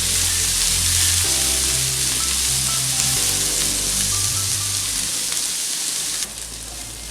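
Sliced onions, green chillies and curry leaves sizzling in hot oil in a pan, with background music underneath. The sizzle drops off abruptly a little after six seconds in.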